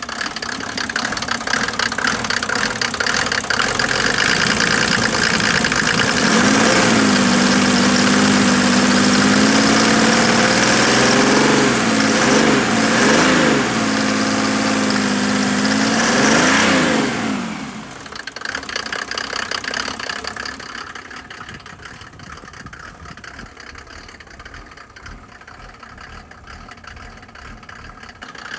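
Mercedes OM603 3.0-litre straight-six turbodiesel revved by hand at the injection pump lever: it climbs to high revs and holds there, is blipped up and down a few times, then drops back to a steady idle about two-thirds of the way in.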